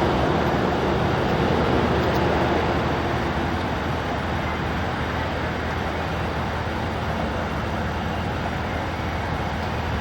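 Steady road traffic noise with a low, even engine hum underneath, a little louder in the first few seconds.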